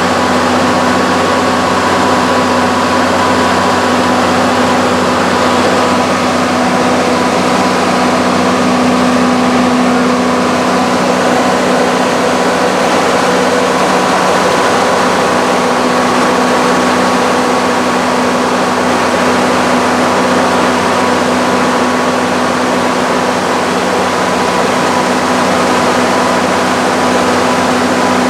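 Onan 80 kW diesel generator set with its six-cylinder turbo-diesel Cummins engine running steadily at constant speed with an even hum, under test on a load bank.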